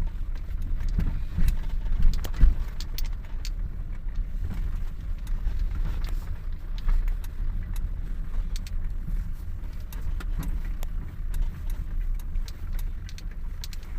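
Car driving on an unsurfaced, graded dirt road: a steady low road rumble with scattered clicks and knocks from the rough surface, the loudest knocks about two seconds in.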